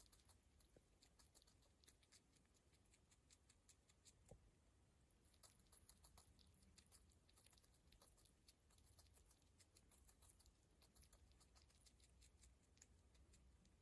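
Near silence, with faint, rapid little clicks of a pet rat nibbling food held in its paws.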